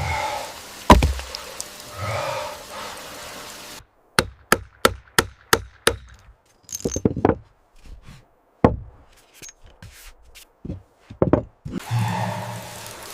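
Sharp knocks of wood being struck: a quick run of six about three a second, then scattered single knocks. Before them a steady hiss with one loud knock cuts off abruptly, and the hiss comes back near the end.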